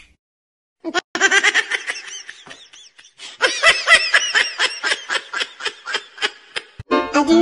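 A baby laughing: after about a second of silence, a long run of quick high-pitched giggles that grows livelier about three and a half seconds in.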